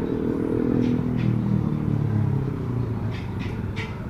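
Street traffic: a motor vehicle engine running close by, its pitch dropping over the first two seconds and then holding steady, with a few light clicks.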